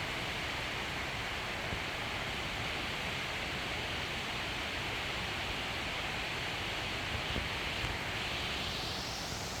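Waterfall rushing in a steady hiss, which shifts a little higher near the end.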